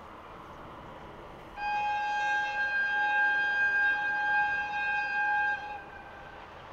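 A train's horn sounding one long steady blast of about four seconds at a single pitch, starting and stopping sharply over a low rail-running background.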